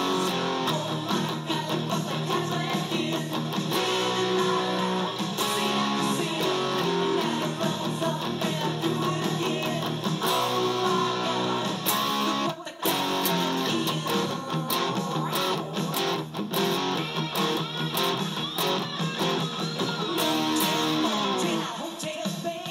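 Fender Stratocaster electric guitar playing rock chords and riffs, with a brief break in the sound a little past halfway.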